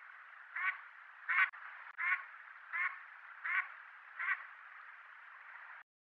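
Mallard hen quacking in an even series, six calls about three-quarters of a second apart, over a steady background hiss.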